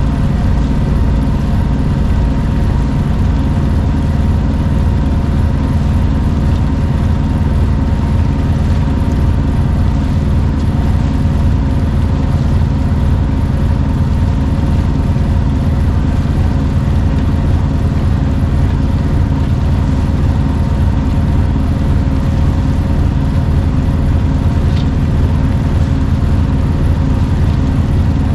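Sailboat's auxiliary engine running at a steady speed while the boat motors along, a constant low hum that does not change in pitch.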